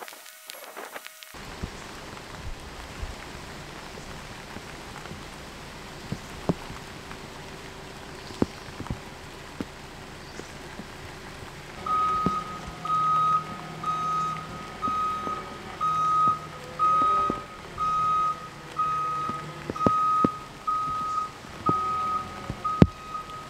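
Manitou telehandler's engine running as it manoeuvres, then from about halfway its reversing alarm sounding: one steady tone beeping about once a second while the machine backs up.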